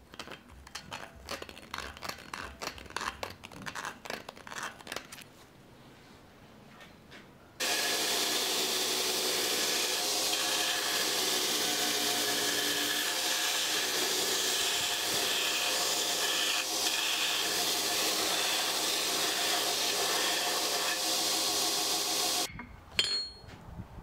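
Scratching and rubbing as a pencil marks the inside of a forged steel axe eye. About a third of the way in, a belt grinder starts up and runs steadily as a wooden axe handle is sanded against the belt, then cuts off suddenly near the end.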